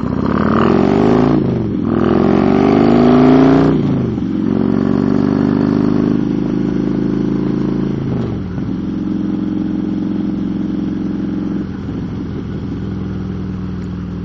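Motorcycle engine under way: revs climb twice with a gear change about two seconds in, then it cruises steadily, easing off about eight seconds in and again near the end.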